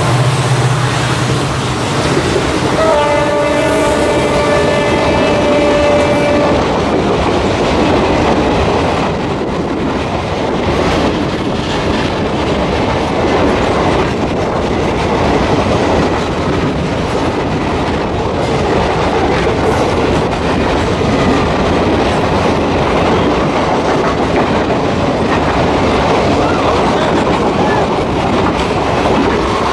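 Express passenger coaches passing at close range, wheels clattering over the rail joints with a steady rushing noise. A train horn sounds one blast of about three and a half seconds, starting about 3 s in.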